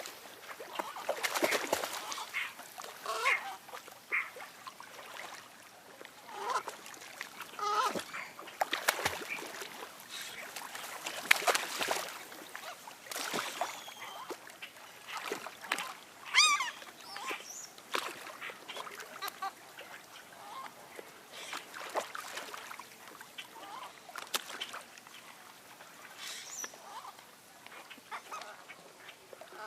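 A flock of waterfowl calling: many short, irregular honks and quacks from geese and ducks, overlapping at times.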